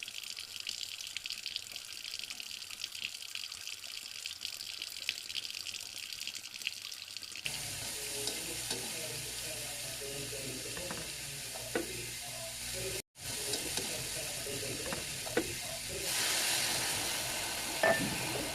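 Running water, a steady splashing hiss with scattered light clicks and knocks; the sound changes abruptly about seven seconds in and drops out for an instant about halfway through.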